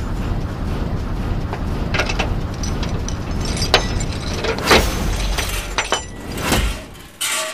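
A ring of keys clinking and a key pushed into a steel door lock, giving a few sharp metallic clicks and clinks. A steady low rumble lies underneath and falls away near the end.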